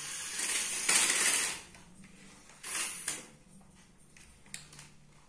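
Toy RC off-road car's small electric motor and gears whirring as it drives, in two spells: a longer, louder one in the first second and a half and a shorter one around three seconds in. A few light clicks follow near the end.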